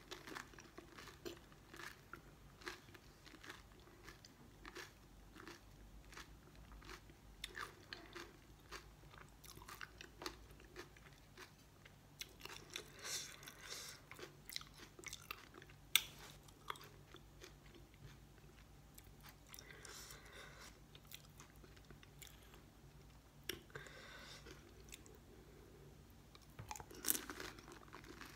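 Close-miked eating of pani puri: crisp fried puri shells crunching and being chewed wet, in a run of short crackles with a few louder crunches.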